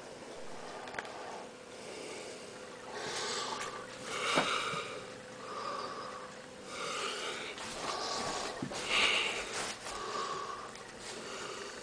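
A person breathing noisily through the nose close to the microphone, short sniffing breaths in and out about once a second, over a faint steady hum.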